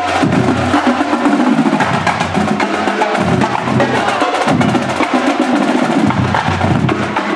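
Marching drumline playing a cadence: tenor drums, snares and Yamaha marching bass drums struck in a fast steady rhythm, with sharp stick clicks over heavy bass drum hits.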